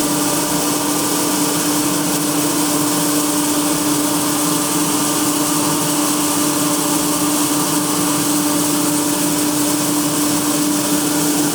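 Claas combine harvester running steadily, a constant machine hum at one even pitch over a wide hiss.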